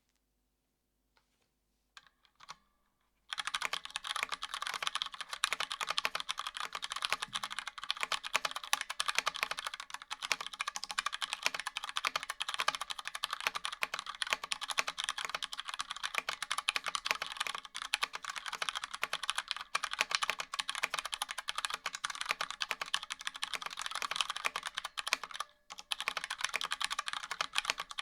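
DK Saver mechanical keyboard with filmed Cherry MX Brown tactile switches in an aluminium case and Cherry doubleshot keycaps, typed on quickly and continuously. The typing starts about three seconds in, after a few soft clicks, and pauses briefly near the end.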